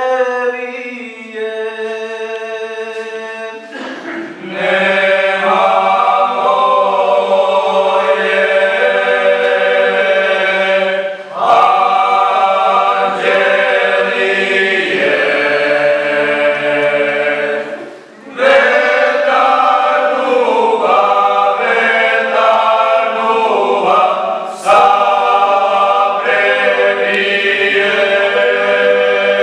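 Young male vocal ensemble singing a Serbian traditional folk song a cappella, several voices together, in long phrases of about six or seven seconds with short breaks for breath between them.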